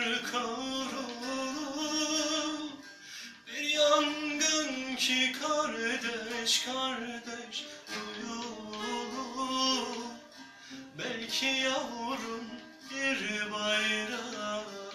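A man's voice singing a slow, ornamented melody, accompanied by a plucked long-necked saz and a strummed acoustic guitar.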